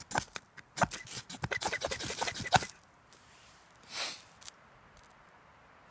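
Knife spine scraping a ferrocerium rod to throw sparks onto tinder: a rapid run of short scrapes over the first two and a half seconds, then one longer scrape about four seconds in.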